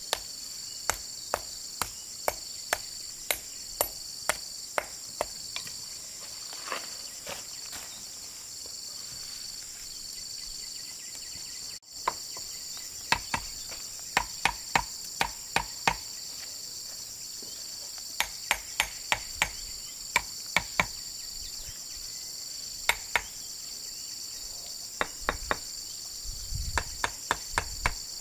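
A steady high chorus of crickets or similar insects, one voice pulsing on and off about once a second. Over it come runs of sharp knocks, about two a second, like hammer blows in hand building work, with a pause near the middle.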